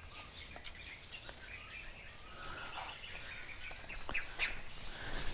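Faint outdoor ambience with small birds chirping, and a few brief clicks near the end.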